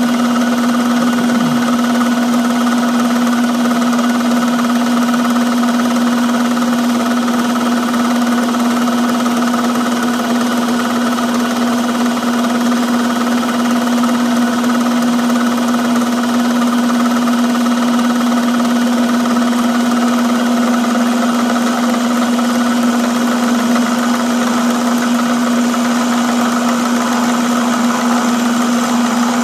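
Metalworking machine tool running steadily under power with a strong constant hum, cutting metal into chips.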